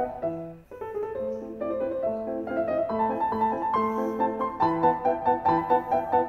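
Background piano music: quick repeated notes, a brief drop-out about half a second in, longer held notes through the middle, and the quick pulsing notes returning near the end.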